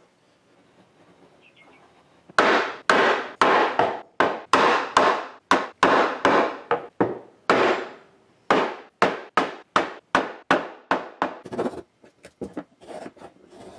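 Hand saw cutting a kerf into the end of a maple block, in even strokes about two a second that start about two seconds in. The strokes turn lighter and quicker near the end.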